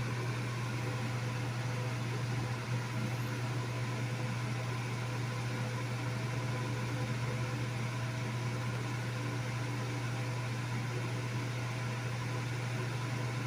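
Steady mechanical hum: a strong low drone with a few fainter steady tones and a light hiss above it, unchanging.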